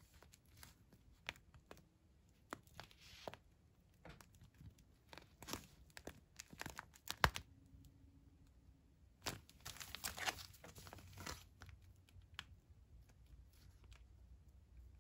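Foil-laminate MRE drink-powder pouch crinkling and crackling as it is handled and turned over, in scattered sharp crackles with one louder snap a little before halfway and a denser run of crinkling about two-thirds through.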